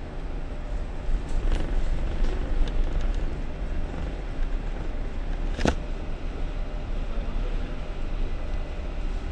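Steady low rumble and hiss of a large container ship's machinery while docking. A few faint clicks come early and a single sharp metallic knock comes a little past halfway.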